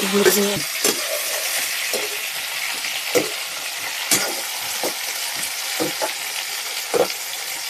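Prawns and fish pieces sizzling in hot oil in a metal kadhai, with a slotted metal spatula scraping and clinking against the pan every second or so as they are stirred.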